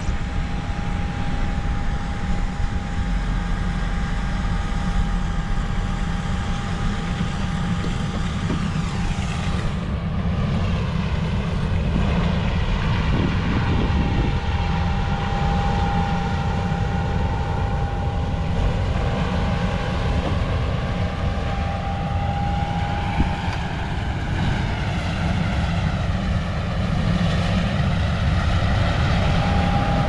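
John Deere S680 combine harvester running as it cuts wheat and draws closer: a steady machine drone with a held whine over a heavy low rumble, a little louder near the end.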